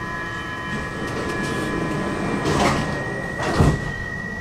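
Stockholm metro train running, heard from inside the car: a steady rumble under a sustained high-pitched squeal made of several tones, with two sharp knocks about two and a half and three and a half seconds in.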